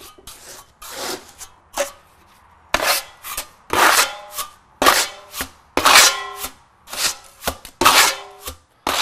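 Steel plastering trowel scraping and cutting lime plaster on a hand hawk, working the stiff mix, about one stroke a second, several strokes with a brief ringing tone. The first couple of seconds hold softer scrapes as the plaster is loaded from the heap.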